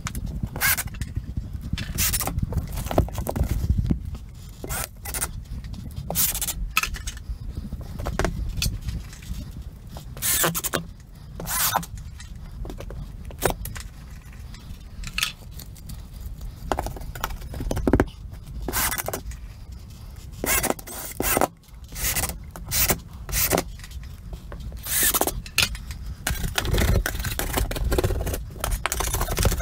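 Hand tools scraping and cutting drywall on a ceiling, with pieces being handled: irregular scrapes and sharp knocks over a steady low rumble.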